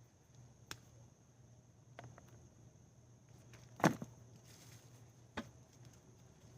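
A few short, sharp knocks and scuffs from digging and handling sweet potatoes in garden soil, four in all, the loudest about four seconds in. A steady, faint, high insect drone runs underneath.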